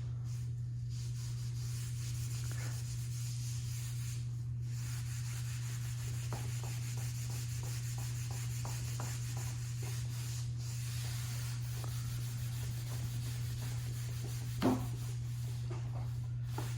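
A rag rubbing over rigid-core vinyl plank flooring to wipe stains off, in a series of faint scrubbing strokes over a steady low hum, with one brief louder knock near the end.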